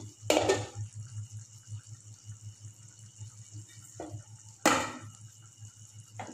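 Thick curry gravy simmering and bubbling in a pan on a gas burner, over a steady low hum. Two sharp clatters stand out, one about half a second in and a louder one near the end.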